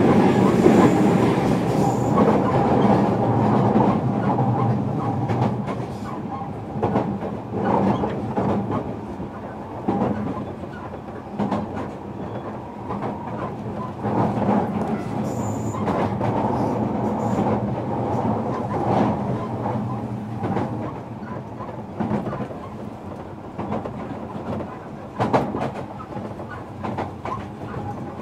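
Running sound inside a JR Kyushu 305 series electric train's motor car under way between stations: a continuous rumble of wheels on rail with scattered clicks over rail joints, louder in the first few seconds, then settling.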